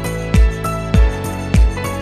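Background music with a steady beat: a low drum hit about every 0.6 seconds under sustained melodic notes.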